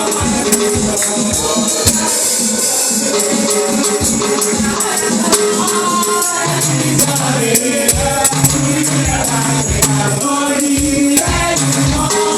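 Gospel praise music: a congregation singing with a tambourine shaken on the beat over a steady instrumental accompaniment.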